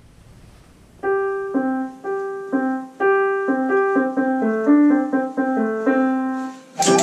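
Digital piano playing a slow melody with chords, struck note by note, starting about a second in. Just before the end a louder, fuller burst of music with sharp percussive hits cuts in over it.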